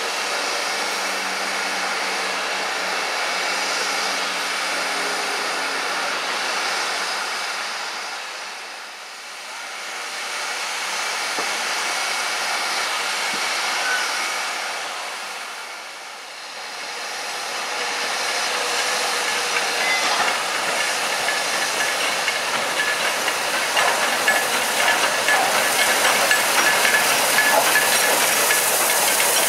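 Steam locomotives hissing steam steadily. It fades down twice, and in the last few seconds the hiss grows louder and rougher as a steam locomotive moves in alongside.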